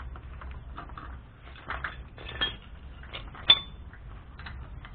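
Metal clinking and scraping from tools and iron pipe fittings being worked at a hand pump's pipe head, with a couple of short scrapes and then one sharp, ringing metal clink about three and a half seconds in.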